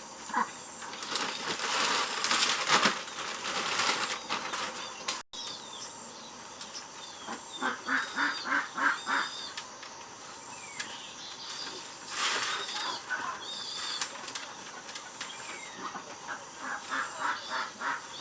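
Farmyard fowl: bursts of flapping and rustling noise, runs of quick repeated calls, and scattered high chirps.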